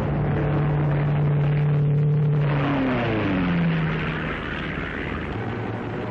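Propeller aircraft engine droning steadily, then falling in pitch a little past halfway as the plane passes by.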